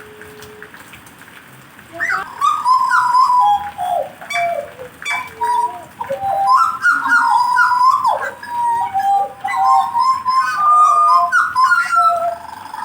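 A caged songbird singing in rapid, varied warbling phrases with quick rising and falling whistles. The song starts about two seconds in.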